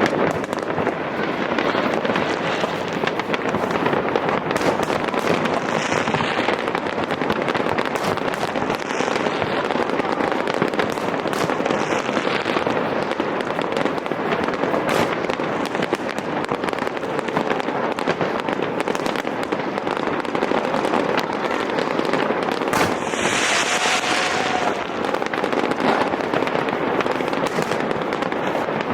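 Fireworks display: a dense, continuous barrage of pops and crackles with scattered sharp reports. A few brief hissing bursts come through, the loudest a little over twenty seconds in.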